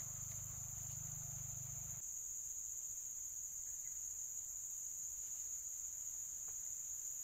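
Steady, high-pitched insect chorus from the riverside vegetation: a shrill continuous trill that does not rise or fall. A faint low hum underneath stops about two seconds in.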